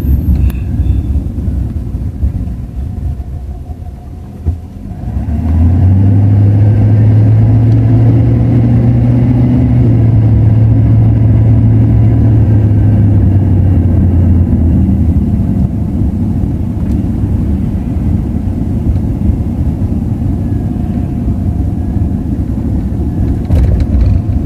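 Car engine and road noise heard from inside the cabin while driving along a town street. About five seconds in it swells into a louder, steady low engine drone, which eases back after about fourteen seconds.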